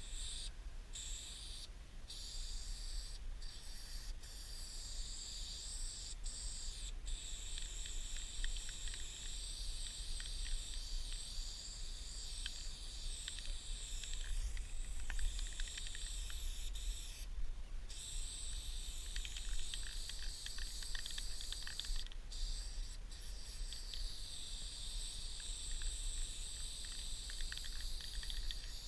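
Aerosol spray paint can hissing against a steel rail tank car in long bursts, cut by short pauses where the nozzle is released, over a steady low rumble.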